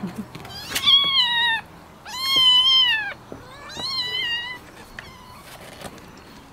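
Young kittens meowing: three shrill cries of under a second each, the first falling in pitch and the second arching up and down.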